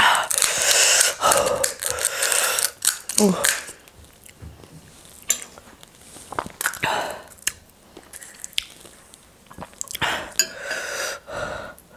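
Crisp hollow panipuri shells crackling as they are poked open with the fingers, with chewing and mouth noises; loudest in the first three seconds, then quieter scattered crackles and clicks.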